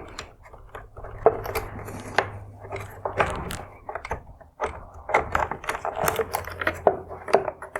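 Plastic cap being popped off the manual headlight adjuster on the back of a plastic LED headlight housing: irregular clicks, knocks and short scrapes of hard plastic.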